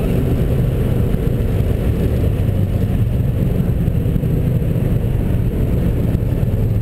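Steady in-cabin drone of a 2011 Nissan GT-R's twin-turbo V6 at high speed, mixed with road and wind noise.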